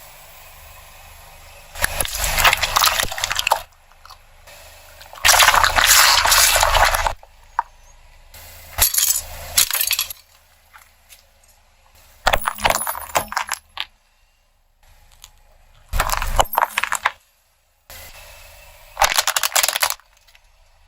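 A run of about six short crunching, crackling passages of objects being crushed under a car's tyres, each lasting one to two seconds, separated by quieter gaps with abrupt cuts.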